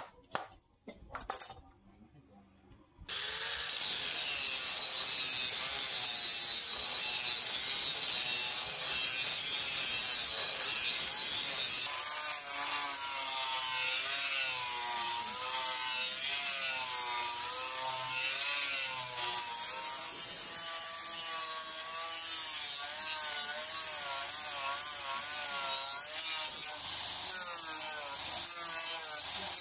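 A few light knocks as the blade is set on the bench, then about three seconds in an electric angle grinder with an abrasive disc starts and runs steadily, grinding the rust off a steel sword blade. Its whine wavers up and down in pitch as the disc is worked along the metal.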